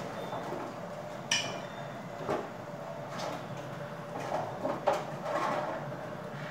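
A metal spoon clinking and scraping against a bowl of olive tapenade as the spread is scooped out. There are a few sharp clinks, and the loudest, with a brief ring, comes about a second in.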